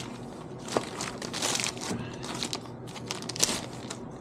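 Packaging wrap crinkling and crumpling as the parts of a saw chain vise are unwrapped by hand, in irregular crackles with a couple of sharper crunches.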